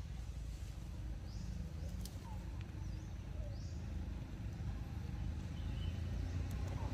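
Low rumble of a passing motor vehicle's engine, growing louder toward the end, with a few faint short bird chirps above it.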